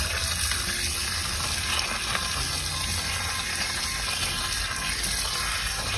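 Water running steadily from a standpipe tap and splashing over skinned rooster carcasses as they are rinsed by hand.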